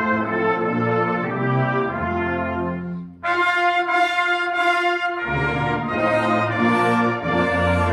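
Youth brass band playing sustained chords under a conductor. About three seconds in the sound breaks off for an instant and a bright, loud chord from the high brass comes in alone; the low brass rejoins about two seconds later.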